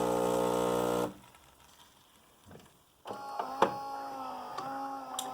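Saeco Xelsis super-automatic espresso machine: its pump runs steadily and cuts off about a second in. After a short pause the brew unit's motor whirs for about three seconds, with a few clicks, as the machine unloads the first shot's grounds and gets the second shot ready.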